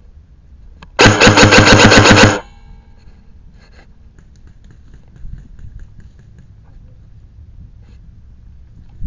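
Airsoft gun firing one rapid full-auto burst, about a second and a half long: a loud buzzing rattle of shots, roughly ten a second.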